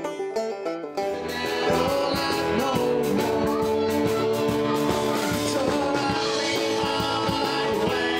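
Country band playing: acoustic and electric guitars, fiddle and drums with a steady beat, and a man singing. The music changes to a fuller sound about a second in.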